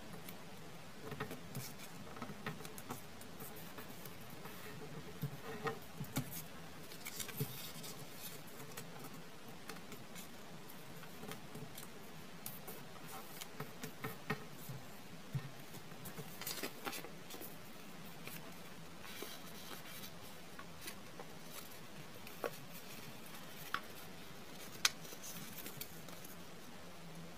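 Origami paper being folded and creased by hand: soft rustling with scattered irregular crinkles and crease clicks, the sharpest few coming near the end.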